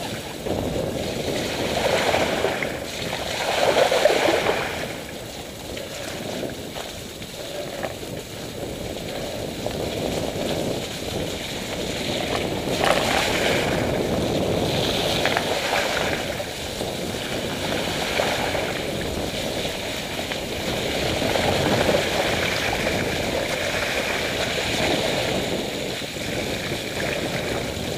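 Mountain bike tyres rolling and splashing through puddles, running water and mud on a flooded lane, a continuous sound that swells and fades.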